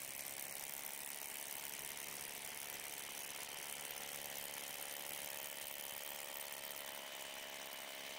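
Cordless Ryobi pneumatic hammer drill boring a masonry bit into hard, set concrete, running steadily without a break with a motor whine over the hammering, the bit going in easily.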